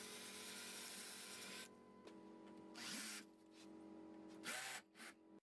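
Cordless drill turning an M12 tap through a stainless steel plate, its motor whining faintly. It runs steadily for under two seconds, then in shorter spurts with pauses between.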